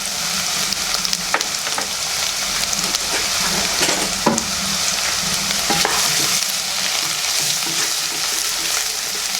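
Chopped ginger, garlic and coconut pieces sizzling in hot oil in a pan while a spoon stirs them, with scattered scrapes and clicks of the spoon against the pan.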